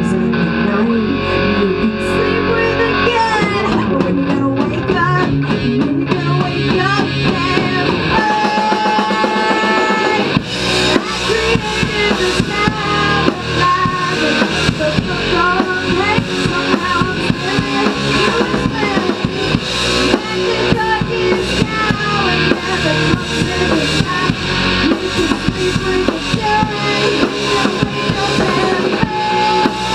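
Rock music: electric guitar with bent, sliding notes, joined about ten seconds in by a full drum kit beating steadily to the end.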